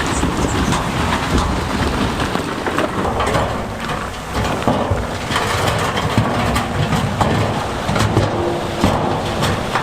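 Heavy earthmoving machinery moving stone: a diesel engine running under load, with rocks grinding and knocking.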